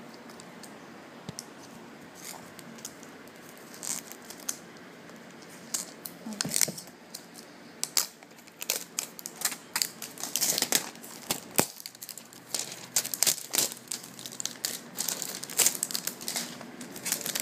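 Plastic shrink-wrap crinkling and tearing as a CD album is unwrapped and handled. Only a few light clicks at first, then dense, crackly crinkling from about six seconds in.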